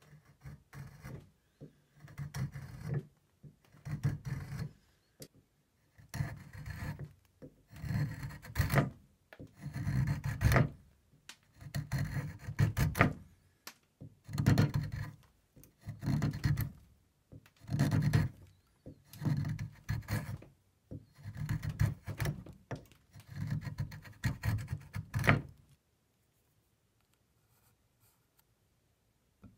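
A steel file drawn across a new wooden chair leg held in a vise, shaping it in slow, even scraping strokes, roughly one every two seconds. The strokes stop a few seconds before the end.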